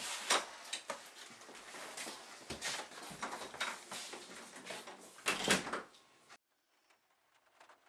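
Door being handled and people shuffling through a doorway: irregular knocks, clicks and rustling, with a louder thud about five and a half seconds in, then the sound cuts off abruptly.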